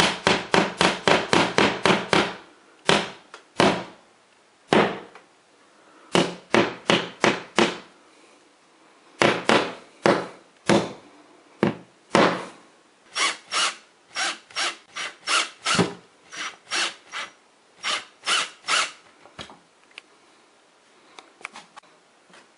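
Claw hammer knocking a heavy-duty metal wall anchor into a drilled hole in the wall: a fast run of sharp strikes, then clusters of blows with short pauses between, stopping a few seconds before the end.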